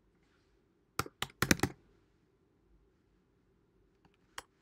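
Computer keyboard being typed on: a quick run of key presses about a second in, then a single key press near the end.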